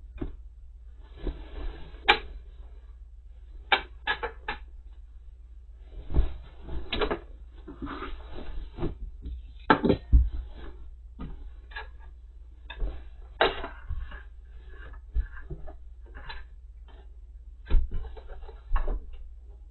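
Quilt rows of cotton fabric being handled and pinned together: irregular rustling with scattered small clicks and taps.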